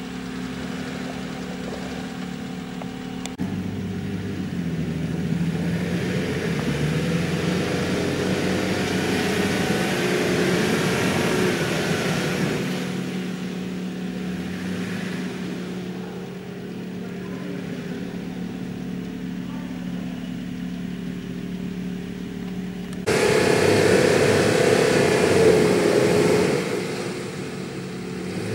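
Nissan Patrol engine working under load on a steep muddy climb, its revs rising and easing. Near the end it suddenly gets louder for about three seconds, then drops back.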